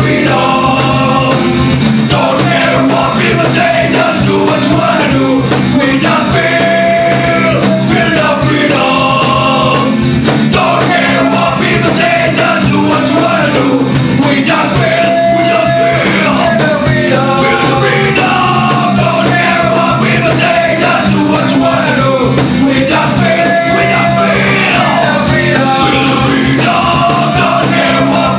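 Live band music: a man singing lead over strummed acoustic guitars, with other voices joining in on the vocals.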